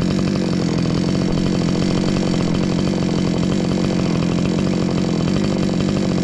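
Two-stroke chainsaw engine running at a steady pitch, not revving or cutting.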